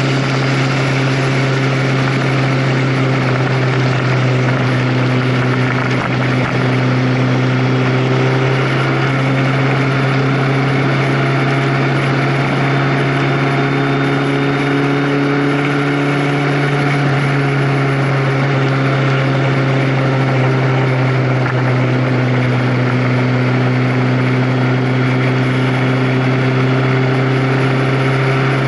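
A vehicle engine running steadily while under way: a constant low drone, its pitch drifting only slightly, under a dense, even rush of wind and road noise.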